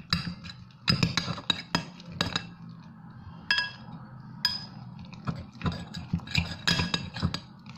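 A utensil clinking repeatedly and irregularly against a bowl while slime is stirred, some strikes leaving a short ring.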